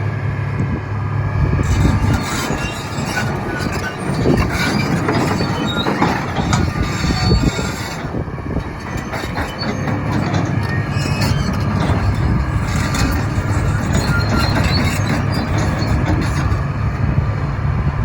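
Komatsu PC300LC-8 hydraulic excavator working: the diesel engine runs steadily under load amid repeated metallic clanks and high squeals of steel parts, such as the tracks and the bucket and thumb linkage.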